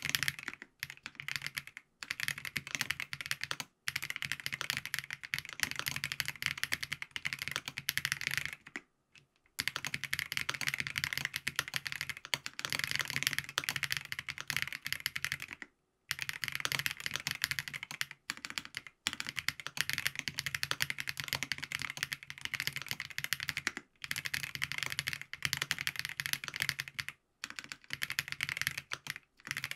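Steady fast typing on a FancyTech Origin 65A mechanical keyboard with Geon Black switches lubed with Krytox 205g2, a gasket-mounted POM plate, foam dampening and ABS keycaps: a dense run of keystroke clacks broken by brief pauses, the longest about nine seconds in.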